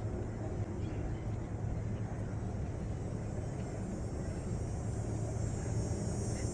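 Steady low engine rumble with a constant hum, as of motor traffic. A high, thin buzz grows louder about halfway through.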